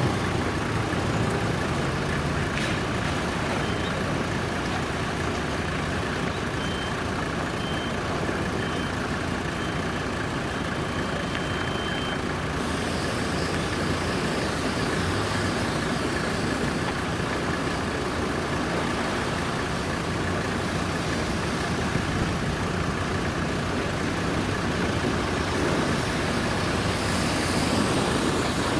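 Steady vehicle engine noise, with a faint short beep repeating about once a second for the first twelve seconds or so.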